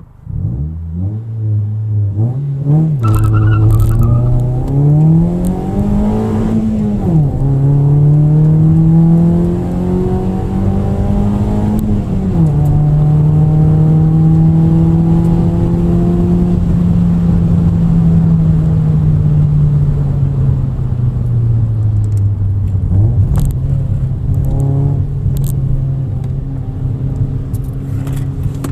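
Toyota Yaris hatchback's engine and exhaust heard from inside the cabin, pulling hard through the gears of a manual gearbox: the revs climb and drop back with each of three quick upshifts. The engine then eases off and slowly loses revs, rises sharply again a little past the two-thirds mark, and settles into a steady cruise.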